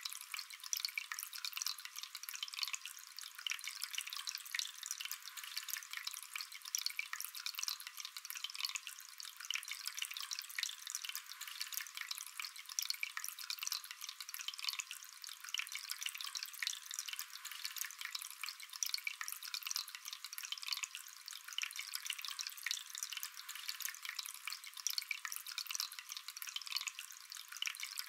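Small polyresin tabletop water fountain running: a thin stream of water falling from its spout and trickling down through the tiered basins into the pebbled base, a steady fine patter of small splashes. It sounds thin, with no low tones.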